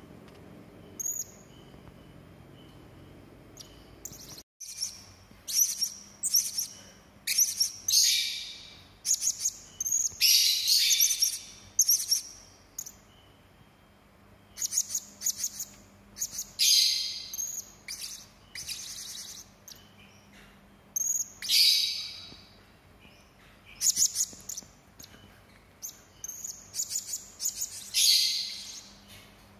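Hanging parrot (serindit) giving sharp, rough, high-pitched calls in clusters of quick notes with short pauses between, after a few faint calls and a brief dropout about four seconds in.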